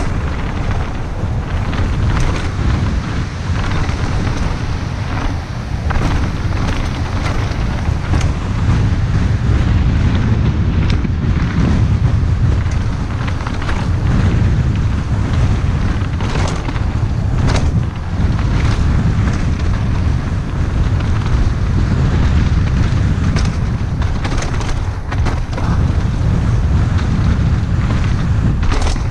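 Heavy wind buffeting a camera's microphone on a fast mountain-bike descent, over the rumble of knobbly tyres rolling on a dirt trail. Sharp knocks and rattles from the trail bike come several times as it hits rocks and roots.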